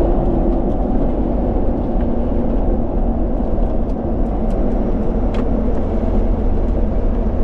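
Steady road and engine noise heard inside the cab of a Ford F-250 Super Duty pickup driving on the highway, with a few faint ticks from the cab.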